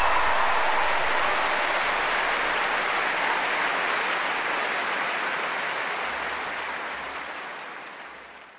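Large audience applauding, a steady even clatter of many hands that fades out gradually over the last few seconds.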